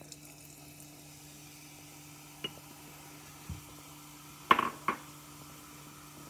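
Two sharp glass clinks about half a second apart, a little after four seconds in, as the foam-filled glass mason jar is handled on a metal wire sink rack. Before them come a light tick and a soft low thump, over a steady low hum.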